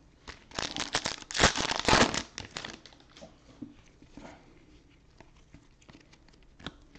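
Foil trading-card pack wrapper crinkling as it is handled and torn, a dense rustle for about two and a half seconds, followed by a few light clicks and taps of cards being handled.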